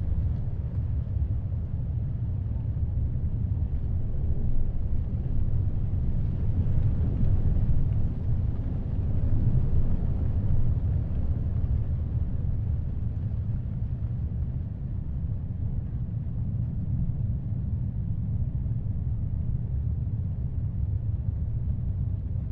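Heavy ocean surf and wind making a steady low rumble, with the sound swelling a little in the first half.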